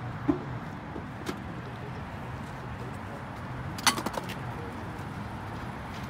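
Things being handled in a car trunk: a single click early on, then a quick cluster of sharp clicks and clinks about four seconds in, over a low steady background hum.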